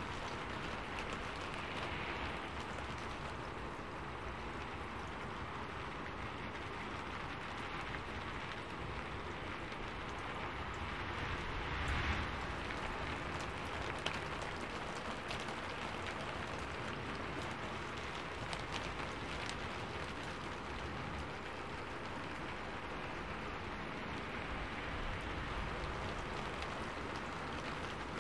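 Steady rain falling, with a brief louder swell about halfway through and a single sharp tick shortly after.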